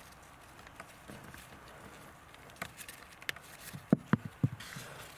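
Small clicks and knocks of hands working the clamps on the heater matrix coolant pipes, with scattered ticks and a quick run of about four sharp clicks about four seconds in.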